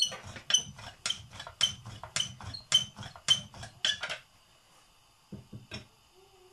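Wooden rolling pin rolling out paratha dough on a wooden worktop, each stroke a low rumble with a short metallic clink from the bangles on the wrist, about two strokes a second. The rolling stops about four seconds in, followed by a few soft knocks.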